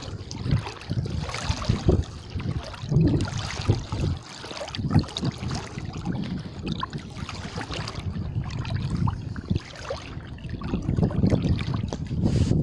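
Water sloshing and splashing around a person's legs as he wades through waist-deep floodwater, with a surge of water sound at each stride, about once a second.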